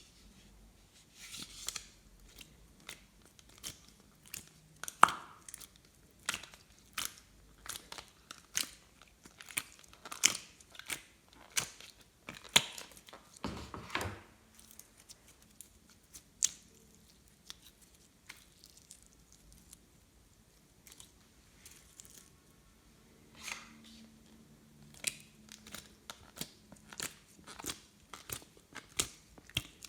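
Glossy slime being kneaded and pressed by hand, giving irregular sharp clicks and pops, with a quieter stretch in the middle.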